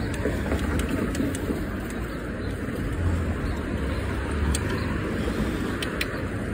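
Steady low rumble of a bicycle ride: wind buffeting the microphone and tyres rolling over pavement, with a few light clicks near the end.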